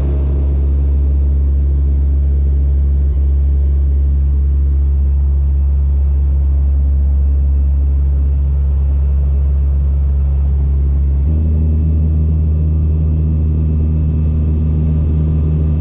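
Cabin noise of a turboprop airliner in flight: the propellers and engines make a loud, steady low drone with a hum of several pitches. The tone shifts abruptly about eleven seconds in.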